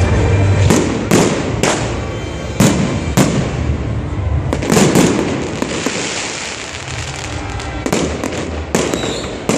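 Fireworks display: aerial shells bursting in an irregular string of sharp bangs, a dozen or so, each followed by an echoing tail, with a cluster of three close together about halfway through.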